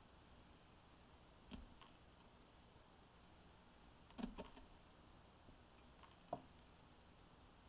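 Near silence: faint room tone with a few soft clicks, the loudest a short cluster about halfway through and another single click shortly after.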